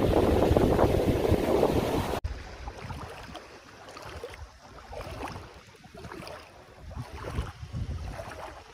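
Loud wind and water noise with wind buffeting the microphone, cutting off abruptly about two seconds in to a much quieter, uneven outdoor noise with scattered small irregular sounds.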